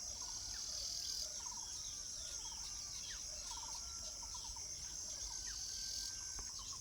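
A steady, high-pitched insect chorus, with several birds chirping, trilling and whistling briefly over it.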